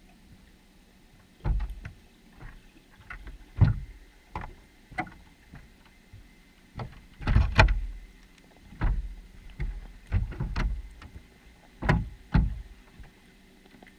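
Irregular dull thumps and knocks picked up underwater, about a dozen in uneven clusters starting a second and a half in, as fish inside a wire fish trap bump and brush against the camera.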